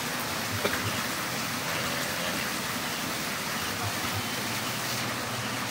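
Water pouring steadily from a pipe into a pond, an even splashing rush, with one small click about half a second in.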